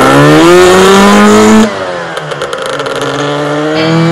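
Lambretta scooter's two-stroke engine revving up as it pulls away, its note climbing steadily; about one and a half seconds in the sound drops suddenly and the note falls back, as at a gear change, then climbs again.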